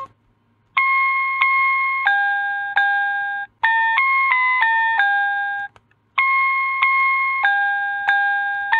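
Instrumental backing track of the children's keyboard song: a simple melody played one note at a time on a bright plucked instrument, each note fading after it sounds. It starts just under a second in and breaks briefly about six seconds in between phrases.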